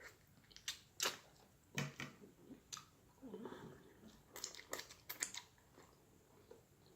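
Close-up mouth sounds of eating: a scatter of sharp, wet smacks and clicks while chewing, thickest about two thirds of the way through.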